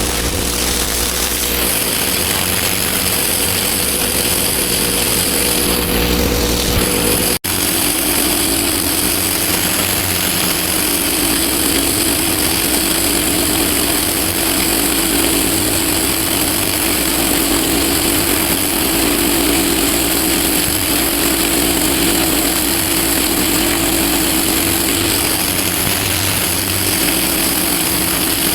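Pressure washer running: a steady motor and pump drone under the loud hiss of the high-pressure water spray on block paving. The sound breaks off for an instant about seven seconds in and carries on.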